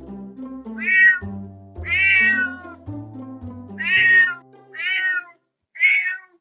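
Kittens meowing: five short, high meows about a second apart, over background music.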